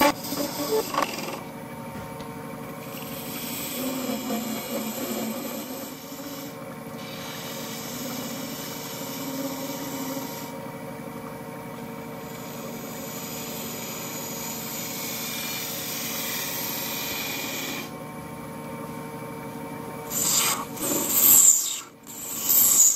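Hand-held turning tool scraping the end face of a solid brass workpiece spinning on a wood lathe: a steady metallic scraping hiss, with louder scrapes about a second in and again near the end.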